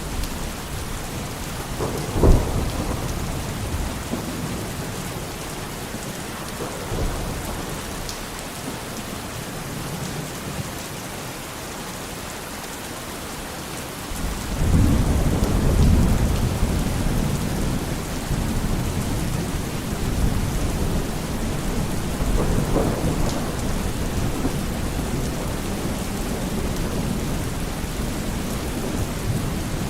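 Steady rain falling in a thunderstorm. A sharp crack of thunder about two seconds in, and a long low rumble of thunder starting about halfway through.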